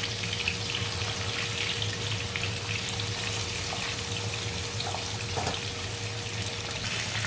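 Turmeric-marinated fish pieces frying in hot oil in a pan, a steady sizzle with fine crackling.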